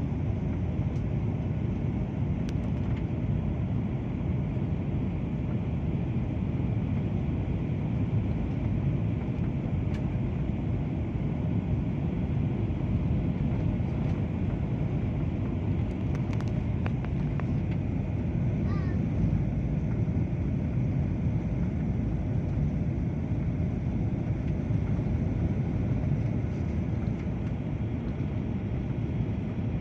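Steady airliner cabin noise in flight: the constant rumble of engines and airflow heard from inside the passenger cabin of a Lion Air plane.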